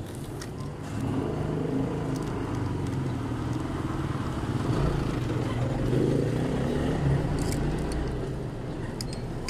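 A vehicle engine running, its hum swelling about a second in and easing off near the end, with a few faint clicks.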